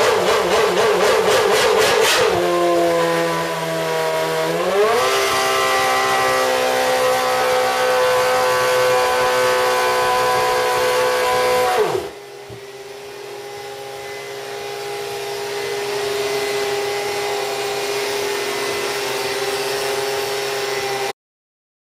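Renault V8 Formula 1 engine in a Red Bull Honda showcar running: a few quick blips of the throttle, then it settles to a steady idle about two seconds in and steps up to a higher idle a couple of seconds later. About twelve seconds in the pitch and level drop suddenly and it idles on more quietly, cutting off abruptly near the end.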